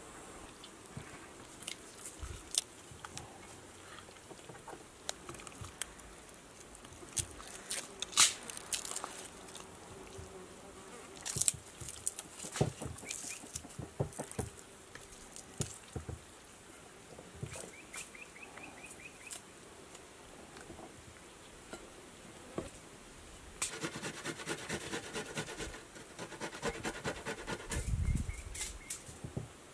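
Hand food-preparation sounds: scattered small clicks and snaps of a paring knife peeling garlic cloves over a plate, then near the end a fast, steady run of rasping strokes as garlic is grated on a metal box grater.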